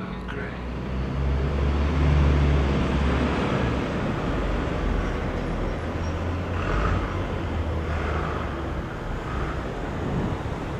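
City street traffic noise: a steady low rumble of passing vehicles, swelling as a vehicle goes by about two seconds in.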